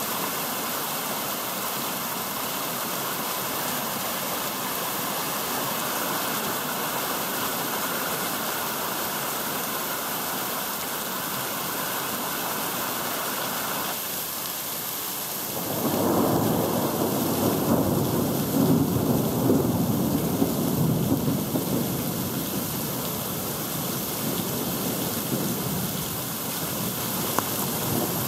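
Heavy thunderstorm downpour: a steady hiss of heavy rain on paving and streaming water. About halfway through, a louder, uneven rumble of thunder sets in and keeps rolling for over ten seconds.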